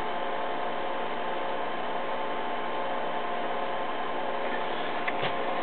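Steady mains hum with a layer of hiss from the running electronic test bench and amplifier, unchanging throughout, with two faint ticks near the end.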